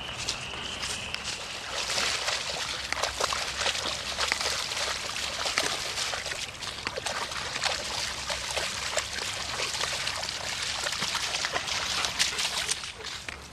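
Water trickling and splashing, with a continuous run of small irregular splashes and clicks.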